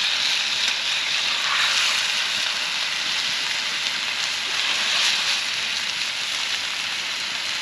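Chicken bites sizzling in a pan over a campfire: a steady frying hiss that swells a little about a second in and again about five seconds in.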